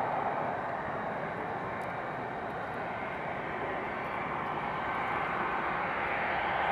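Boeing 757-200 jetliner on final approach with landing gear down: the steady rushing noise of its engines, growing louder near the end as it closes in.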